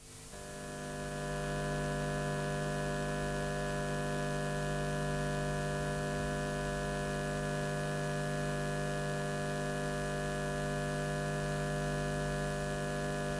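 Steady electrical mains hum made of several fixed tones over a low rumble, fading in over the first second or two and then holding level.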